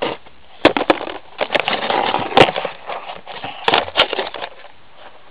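Close-up rustling and handling noise with several sharp clicks and knocks, the loudest about two and a half seconds in.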